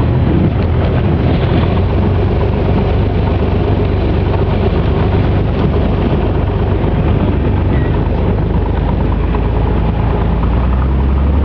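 Maule bush plane's piston engine and propeller running steadily, heard from inside the cockpit while the plane moves over rough gravel ground. The low drone grows a little stronger near the end.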